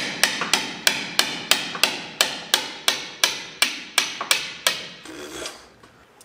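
A hammer striking metal in a steady run of about three blows a second, each ringing briefly. The blows stop a little before five seconds in, and a short scrape follows.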